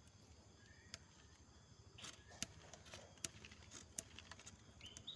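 Near silence with faint, scattered clicks and scrapes of a small knife peeling bark off a longan branch.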